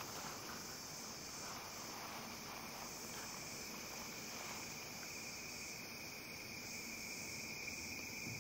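Faint, steady night-time insect chorus, a continuous high-pitched trill like crickets.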